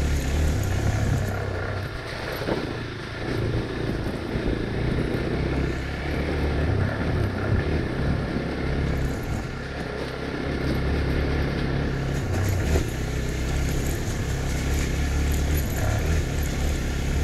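Hero Xpulse 200 motorcycle's single-cylinder engine running on an off-road ride, its note easing off briefly about two seconds in and again around ten seconds.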